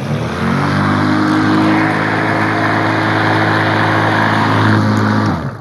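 Battery-powered electric lawn mower starting up, its motor and blade spinning up quickly to a steady loud hum with a whooshing of air, then switched off and dying away near the end. It starts and runs now that the safety start button, jammed by a dislodged spring and misaligned safety, has been fixed.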